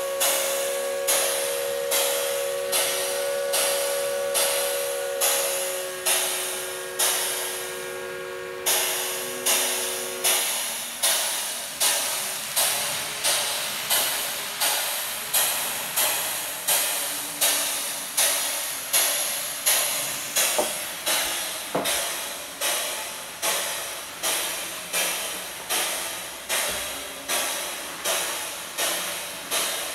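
Steam locomotive chuffing at a steady, unhurried rhythm of about one and a half hissing exhaust beats a second. A held chord of steady tones sounds alongside for roughly the first ten seconds, then stops.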